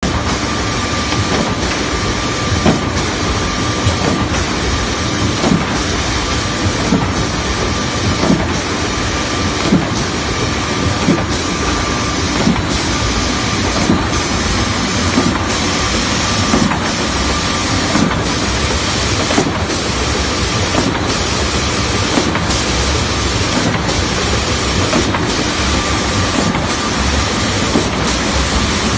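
Multi-head plywood sanding machine running steadily: a loud, dense noise with a faint steady whine, dipping briefly about every second and a half.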